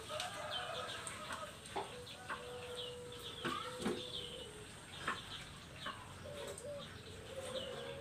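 Female puter dove (Barbary dove) cooing: a long, low, level coo held for about three seconds mid-way, with shorter low coos near the start and end. Small birds chirp around it with many short, falling, high-pitched notes.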